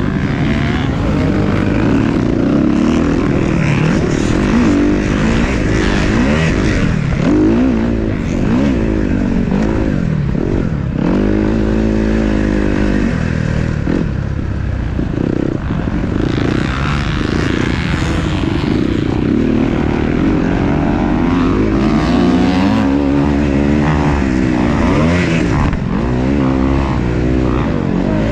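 Several motocross dirt bike engines revving on and off as they race, with overlapping pitches that keep rising and falling.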